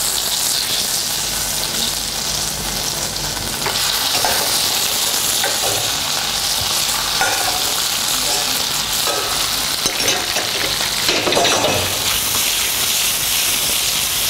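Boiled gnocchi frying in foaming butter in a hot steel pan, a steady sizzle that grows louder about four seconds in as more gnocchi go into the pan. A few light knocks of the slotted spoon and pan, which is tossed near the end.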